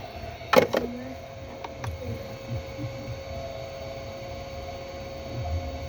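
Two sharp clicks about half a second in, then a steady electrical hum with a mains-like drone underneath.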